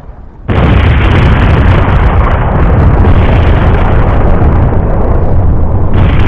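Explosion sound effect for the crashing airship: a sudden loud blast about half a second in that runs on as a continuous deep rumble, with a fresh surge near the end.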